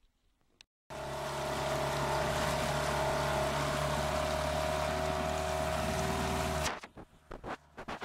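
Small outboard motor running steadily at speed, pushing an inflatable boat, with a steady hiss of water and wind under it. It comes in suddenly about a second in and cuts off near seven seconds, followed by a few short knocks.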